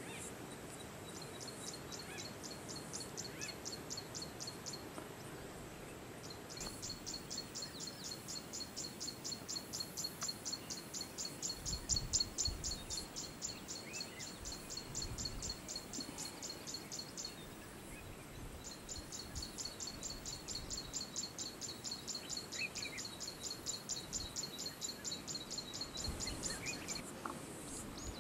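High-pitched rhythmic chirping at about five chirps a second, in three long runs broken by short pauses. A few faint, lower single chirps and a couple of low rumbles near the middle sit beneath it.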